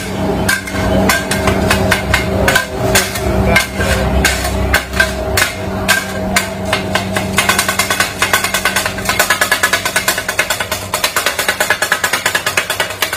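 Flat steel kottu blades clanging against a steel griddle as kottu roti is chopped. The strikes are irregular at first and quicken into a fast, even clatter about halfway through. A steady hum runs under the first half.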